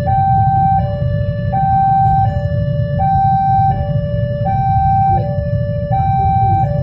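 Electronic two-tone warning alarm of a railway level crossing, switching between a low and a high tone about every 0.7 seconds: the signal that a train is approaching and the crossing is closed. Under it is the steady low rumble of waiting motorcycle and car engines idling.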